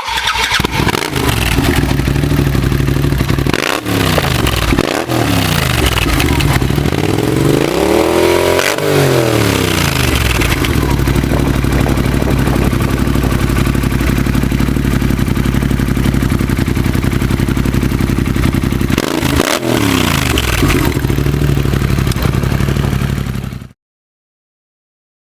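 Arctic Cat Wildcat 1000 side-by-side's V-twin engine idling through a Big Gun Evo U dual full exhaust system, with the throttle blipped a few times: short revs about four and five seconds in, a longer rev up and back down around nine seconds, and another near twenty seconds. The sound cuts off suddenly near the end.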